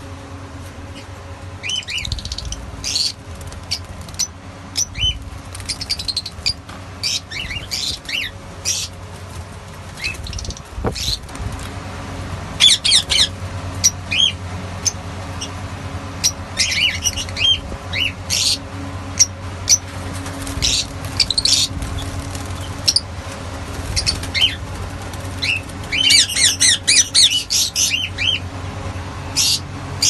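Fischer's lovebirds chattering: shrill, rapid chirps and squeaks in bursts, busiest near the end, over a steady low hum.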